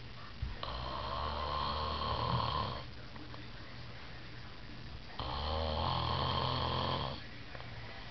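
A sleeping kid snoring loudly: two long, rattling snores, each about two seconds, with a quiet breath between them.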